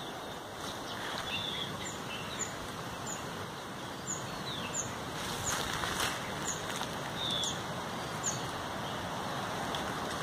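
A bird repeating short, high, falling chirps about once or twice a second over a steady outdoor hiss, with a few brief rustles of leafy branches around the middle.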